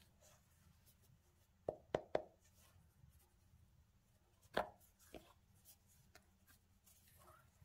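Gloved hands handling a Nike Air Max Plus 3 sneaker: faint rubbing with a few sharp taps and clicks, three in quick succession about two seconds in and a louder one a little past halfway.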